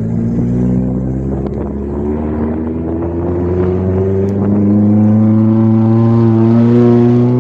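Vehicle engine pulling under load, its pitch climbing steadily and getting louder as it accelerates, then easing off near the end.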